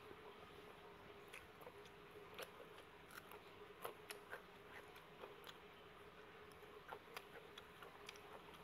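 Near silence with quiet eating sounds: soft mouth clicks and chewing noises scattered through, over a faint steady hum.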